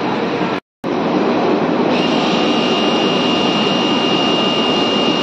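Automatic fabric spreading machine running, a steady mechanical whir with factory noise. The sound drops out for a moment just under a second in, and a steady high whine joins about two seconds in.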